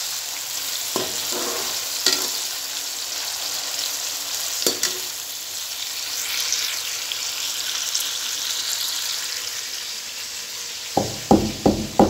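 Onions, tomatoes and whole green chillies sizzling in hot oil in an aluminium karahi, with a slotted metal spoon clicking against the pan now and then. Near the end a wooden pestle starts pounding in a wooden mortar, a quick run of dull knocks, crushing dried pomegranate seeds and coriander seeds.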